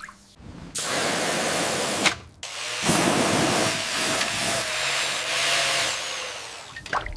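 A water sprayer blasting at the rusted metal of a toy motorcycle in two long, even hissing bursts, each cut off sharply: a short one, then after a brief pause a longer one.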